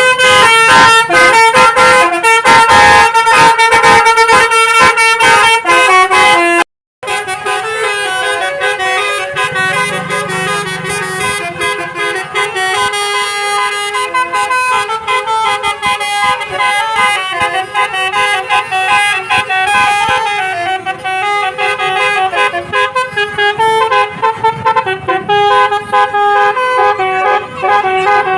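A bus's Basuri telolet horn plays a multi-note tune, several horn tones sounding together and stepping from note to note. The sound drops out briefly about seven seconds in, then carries on a little quieter.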